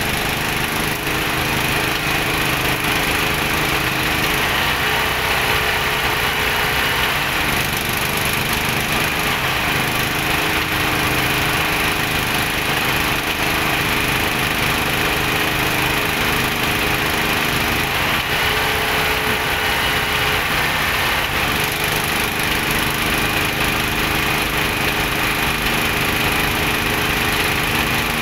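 Engine of a small oil-well drilling rig running steadily, its note wavering briefly twice, about five seconds in and again around twenty seconds.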